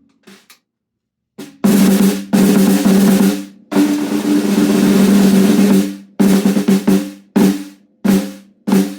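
Premier snare drum with new AJAX snare wires being played as a test: a light tap, then two sustained rolls of about two seconds each, then a string of single strokes, each with a ringing drum tone and a buzz from the wires.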